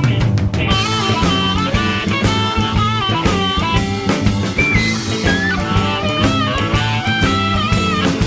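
Rock music with electric guitar leads over a drum kit beat.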